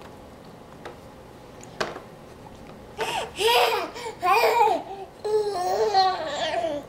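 A young child's high-pitched excited shouts before taking a bite of food: three short cries about three seconds in, then a longer drawn-out one that ends abruptly near the end.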